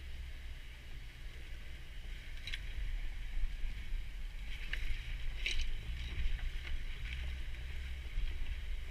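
Jeep engine running at a low crawl, heard from inside the cabin, as the tyres roll over a wet, rocky trail, with a few sharp knocks in the middle.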